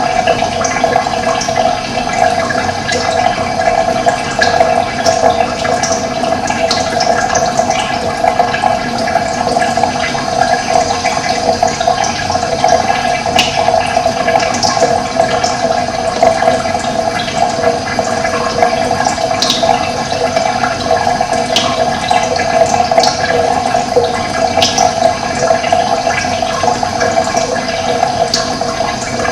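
Steady rush of running water, with short high bird chirps here and there.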